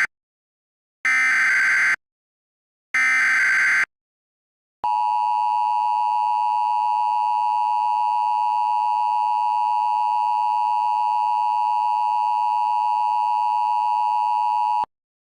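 Emergency Alert System SAME header data bursts, three short buzzy chirps about a second apart (the first ending as the sound begins). After a brief pause, the steady EAS attention-signal tone sounds for about ten seconds and cuts off suddenly, announcing a new alert.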